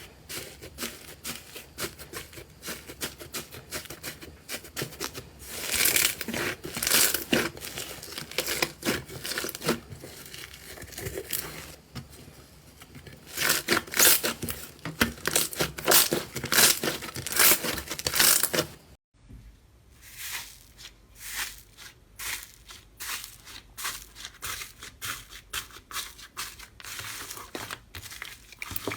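Slime being squeezed, pressed and stretched by hand, giving a dense run of small crackling clicks and pops, loudest in two spells. About two-thirds of the way in it cuts to another slime with fainter crackles.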